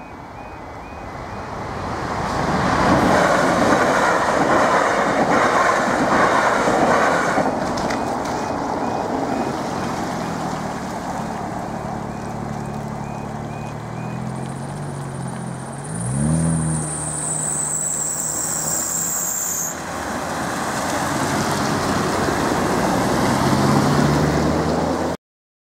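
A Class 444 electric multiple unit runs through the level crossing, loudest about three to eight seconds in, over the faint, faltering warble of the crossing's faulty alarm. The alarm stops about halfway through, and car engines rev up as the waiting traffic pulls away over the crossing.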